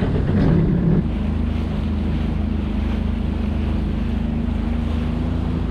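Sea-Doo jet ski engine running steadily under way across choppy water, with wind on the microphone and splashing water under the hull. The first second is a louder, rougher rush before the engine note settles.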